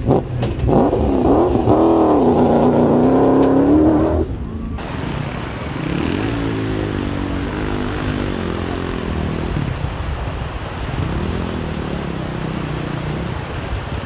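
Rally vehicle engine revving hard, its pitch swinging up and down. About a third of the way in it changes abruptly to a quieter engine, whose revs rise and fall again.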